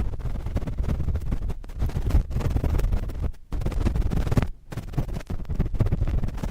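Cotton swabs scratching and rubbing directly on a microphone: a dense, scratchy rustle, heavy in the low end, with two brief pauses about three and a half and four and a half seconds in.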